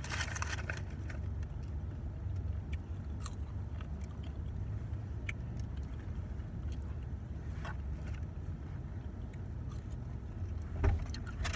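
Steady low rumble of a car's cabin, with scattered small clicks and crunches of someone eating by hand. The sharpest of these comes near the end.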